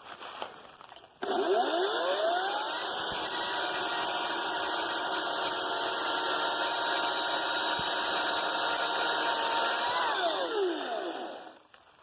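Ryobi 40V 14-inch battery chainsaw's electric motor and chain spinning up, running at a steady pitch for about eight seconds, then winding down to a stop.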